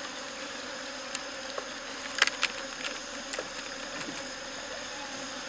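Honeybees buzzing steadily over an open wooden hive box, with a few light clicks as the wooden frames are handled for inspection.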